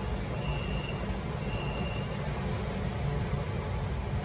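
Subway platform screen doors and train doors closing: two high warning beeps about a second apart, over the low steady rumble of a Beijing Subway Line 8 train standing at the platform.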